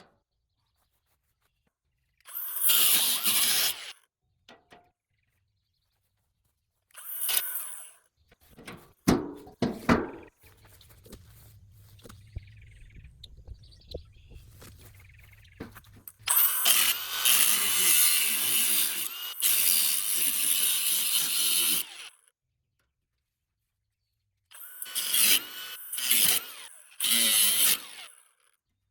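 Power tool run in several bursts of a few seconds each, the longest about five seconds, with a few sharp knocks in between, while the side metal is cut off and the bolts removed from an old steel pipe-frame chair.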